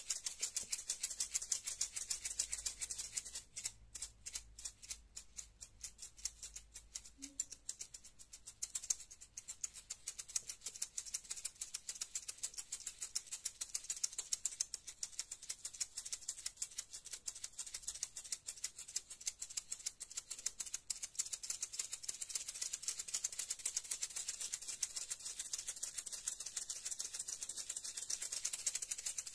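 Maracas shaken continuously in quick, even strokes, a crisp rattle. The shaking turns softer about three and a half seconds in, then picks back up after about eight seconds.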